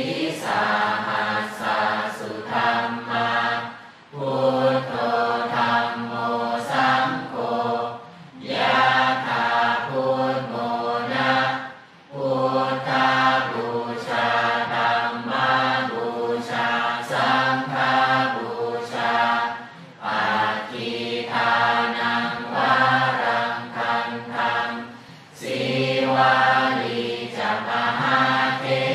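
A group of voices chanting a Buddhist chant in unison, in steady phrases of about four seconds with short pauses for breath between them.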